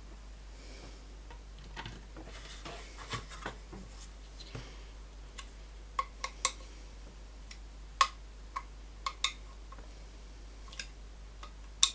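Scattered sharp clicks and taps of small parts and tools being handled while refitting a loudspeaker's tweeter, most of them in the second half.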